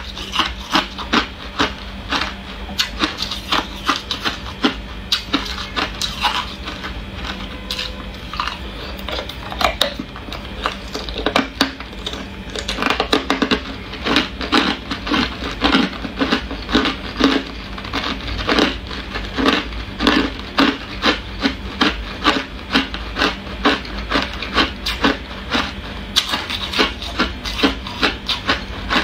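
Ice being bitten and chewed close to the microphone: a run of sharp, brittle crunches that becomes an even rhythm of about two a second in the second half.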